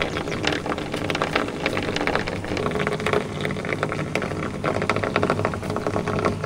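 Water gushing and splashing out of a pipe, with a steady low hum underneath.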